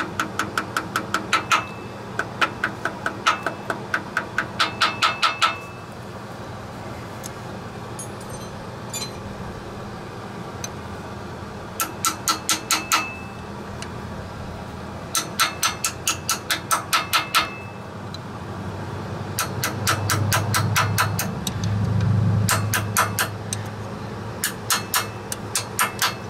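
Small hammer tapping a new rear main seal into the engine block of a 3.0 V6, partly through a wrench held against the seal. The taps come quickly, about five a second, in several runs with pauses between, each with a short metallic ring. A low background rumble swells about three-quarters of the way through.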